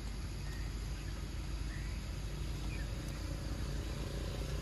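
A steady low outdoor rumble, with a few faint, short bird chirps over it.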